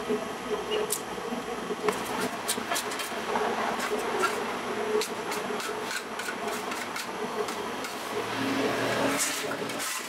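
A dough scraper and hand working dough against the inside of a stainless-steel mixer bowl, with scattered scrapes and light knocks, over a steady machine hum.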